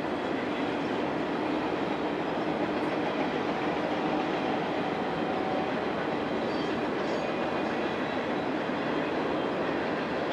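Canadian Pacific freight train of covered hopper cars rolling past: a steady rumble of wheels on the rails.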